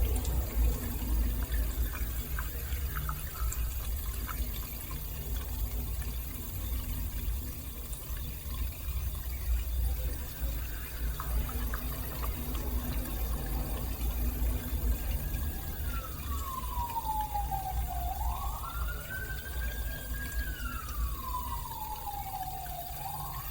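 Beko DFN05211 dishwasher running, water sloshing and filling inside over a steady low rumble. From about two-thirds of the way through, a siren wails, its pitch falling and rising back twice.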